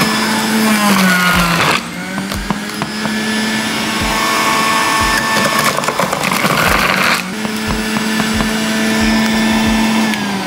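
Electric juicer's motor running steadily, shredding coconut pieces that are being pushed down the feed chute. A dense run of rapid clicking comes through in the middle. Its pitch sags briefly about a second in and drops away near the end.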